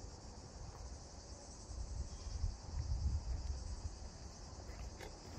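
Steady high-pitched chorus of insects chirping in dry summer scrubland, over a low uneven rumble of wind on the microphone.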